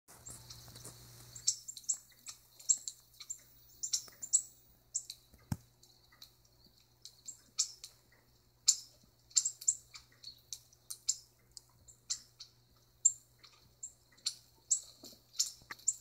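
Small birds chirping in quick, short, high-pitched notes, several a second, from a bird video played through a tablet's speaker.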